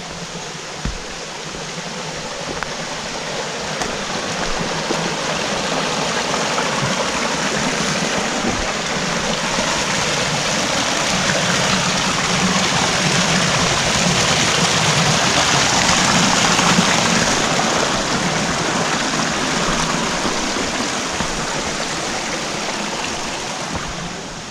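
A rocky mountain brook rushing and splashing over boulders, a steady rush of water that grows louder over the first two-thirds, then eases slightly.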